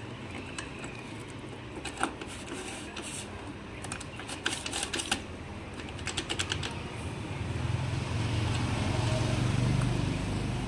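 Small metal clicks and clinks of motorcycle clutch plates and the pressure plate being handled and seated in the clutch basket, some in quick runs. In the last few seconds a low hum swells up under them.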